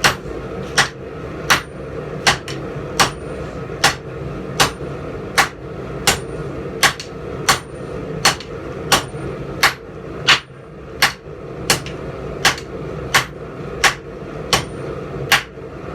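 Heavy forging hammer blows on hot steel over an anvil, drawing the bar out into a taper: a steady rhythm of sharp strikes, about four every three seconds, each with a short ring.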